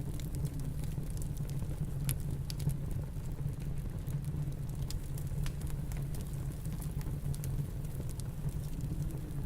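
Wood fire crackling with scattered sharp pops over the steady low rumble of snowstorm wind.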